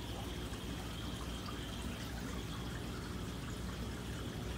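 Steady trickle of aquarium water from tank filtration, with a low hum underneath.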